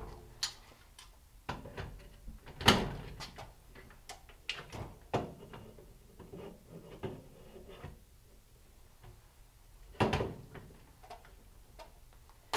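Scattered clicks and knocks as an AR-15 rifle is handled and turned over, the loudest about three seconds in and again about ten seconds in.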